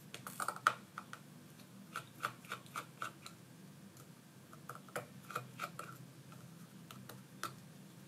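Faint, irregular small clicks and scrapes of a precision screwdriver turning out tiny screws from a tablet's metal battery-connector cover plate.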